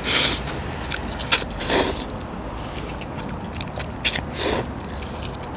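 Ramen noodles being slurped from chopsticks: three loud slurps, one just after the start, one a little before two seconds in and one about four and a half seconds in, with a few short clicks between them.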